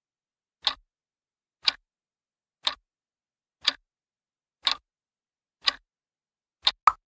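Countdown timer sound effect: a sharp, clock-like tick once a second, seven in all, the last one followed closely by a second tick.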